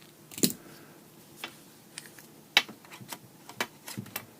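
Scattered sharp clicks and light knocks of lightsaber hilt parts being fitted and locked back together, about six in all, the loudest a little past halfway.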